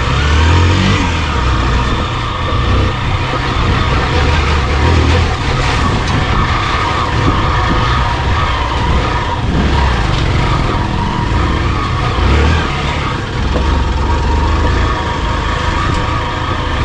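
Motorcycle engine running while riding an off-road trail, its note rising and easing with the throttle, over heavy noise from the ride.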